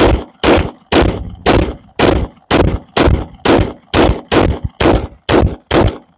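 Canik SFX Rival 9mm pistol fired in a steady string of about a dozen shots, roughly two a second, quickening slightly near the end, as a magazine is emptied.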